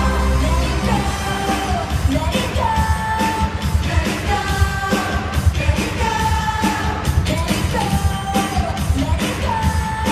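Pop-style show song with a sung melody and drums, played loud over an ice arena's sound system.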